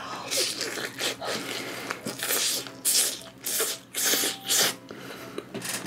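Close-miked chewing of roast whole chicken: a run of moist mouth and crunching sounds in an uneven rhythm of about two a second.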